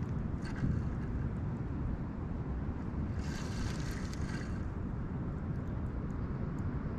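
Steady low rumble of wind on the microphone, with a short rushing hiss for about a second starting some three seconds in.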